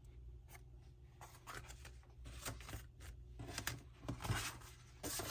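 Stiff cardstock greeting cards being handled and moved, rustling and scraping in a run of short strokes, loudest about four seconds in.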